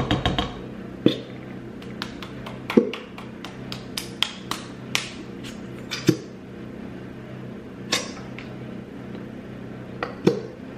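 Irregular taps and clinks of a utensil against a mixing container, about a dozen scattered strikes, a few with a short ring.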